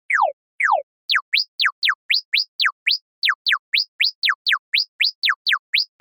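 Synthesized cartoon sound effects: two falling chirps, then from about a second in a quick run of short chirps sliding up and down in pitch, about four a second.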